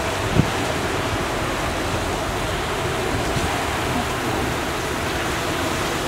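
Heavy squall rain falling steadily, an even hiss, with one sharp knock about half a second in.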